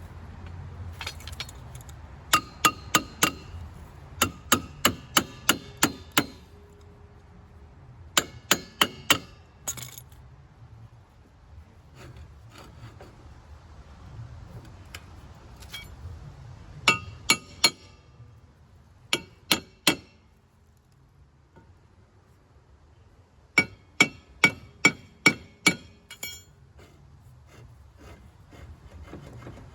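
Hammer tapping a replacement rear wheel hub onto the splined drive axle of an EZGO ST350 golf cart: quick runs of three to eight sharp, ringing metal strikes, several a second, with pauses between the runs.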